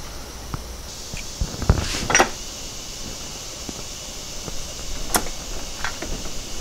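Scattered light clicks and knocks of parts being handled on a VW 020 transmission while its fifth-gear cover and gasket are refitted over the dowels. The loudest knocks come about two seconds in and again near five seconds, over a faint steady hiss that starts about a second in.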